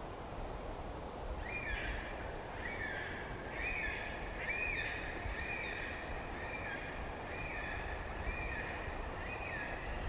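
Yellow-tailed black cockatoos squealing, a call about once a second starting a little over a second in, each call rising then falling in pitch, with some calls overlapping, over the steady roar of wind in the branches.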